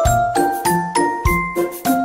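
Background music: a light, tinkling melody of short bell-like notes over a bouncy, evenly paced bass beat.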